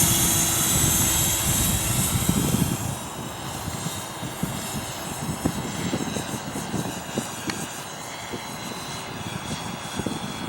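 500-size RC scale Little Bird (MD 500 model) helicopter in flight, its rotor and motor whine loud at first and dropping in level about three seconds in as it flies farther out.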